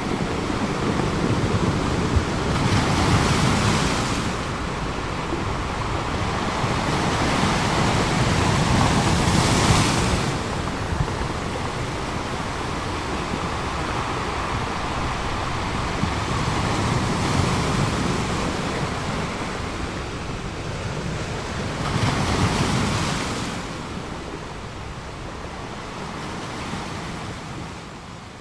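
Sea surf breaking and foaming against coastal rocks: a continuous rush of water that swells with each wave, strongest a few seconds in, around ten seconds in and a little past twenty seconds, then dies away near the end.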